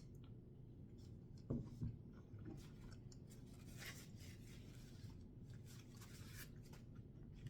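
Near silence with faint rustling and handling sounds, and two soft bumps about a second and a half in.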